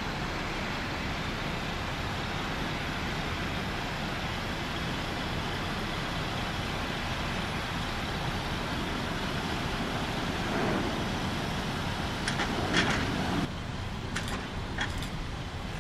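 Jet engines of a jetBlue Airbus A320 at takeoff power: a steady, wide rushing roar as it rolls and climbs out. Near the end it cuts off abruptly to a quieter background, with a few sharp clicks.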